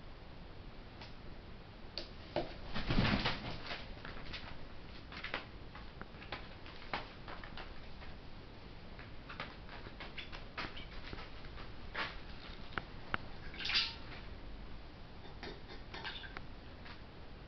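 Young herring gull moving about on plastic sheeting: sparse light taps and crinkles, with a louder rustle about three seconds in. Near the end come taps from its bill in a steel water bowl.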